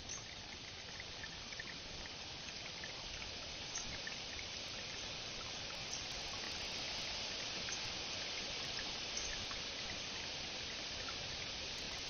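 Water trickling steadily in a rock-lined bird bath pool, with a few faint ticks over it.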